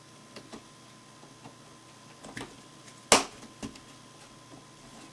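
Plastic pleat spacers being worked into the pleats of an Aprilaire accordion-pleated filter media: a few small clicks and rustles, then one loud, sharp snap about three seconds in and a lighter click just after.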